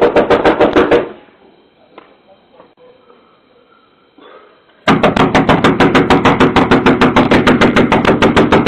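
Rapid, loud knocking on a door, several knocks a second. It stops about a second in and starts again at about five seconds.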